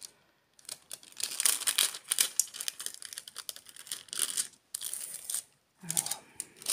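Protective plastic film crackling and tearing as it is peeled off a clear plastic night-light panel, in irregular spells with brief pauses.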